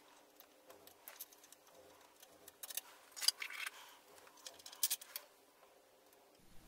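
Scattered small clicks and taps as screws and laminate blanks are handled and fitted against a metal faceplate, coming in a few short clusters.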